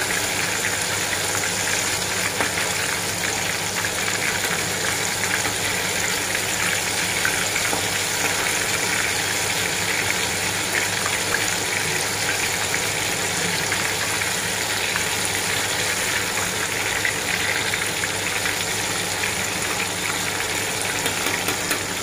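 Batter-coated squid deep-frying in hot oil in a wok, a steady sizzle with fine crackling throughout.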